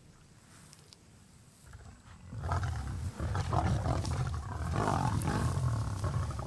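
Lionesses growling and roaring as they feed on an elephant. The sound starts a little over two seconds in after a near-quiet start, then carries on loud and low, in irregular rough bouts.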